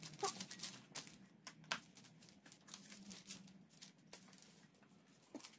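Faint scattered clicks and rubbing of a new minivelo bicycle tyre bead being pushed over the rim by hand, without a tyre lever.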